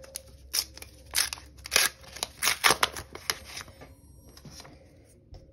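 Foil wrapper of a trading-card pack being torn open and crinkled by hand, a quick run of sharp crackles and rips that dies down after about three and a half seconds.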